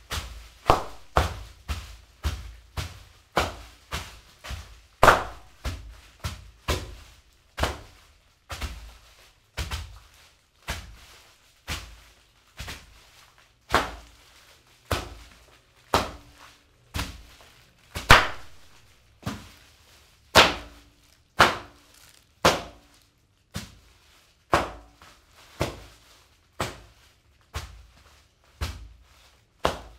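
Bare feet stepping and stamping on a pile of individually wrapped fortune cookies on a hard floor, crushing them: a run of sharp crunches with crinkling wrappers, a little more than one a second and uneven in strength.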